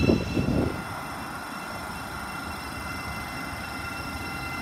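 Thameslink Class 700 electric multiple unit alongside the platform, its electrical equipment giving a steady high whine in several tones. A low rumbling at the start stops about a second in.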